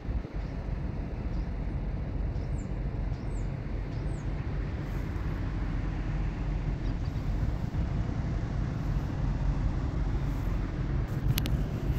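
Steady low rumble of outdoor ambience across an open truck parking lot, with two sharp clicks near the end.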